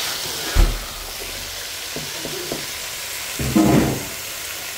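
Tandoori chicken pieces with onion, tomato and cabbage sizzling in a pan while a spatula stirs them, with a knock about half a second in and louder stirring a little after three seconds.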